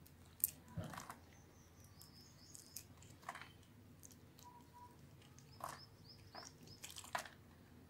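Metal blade cutting through a scored bar of soap, breaking off small crunchy cubes: irregular sharp crackling clicks and short scrapes.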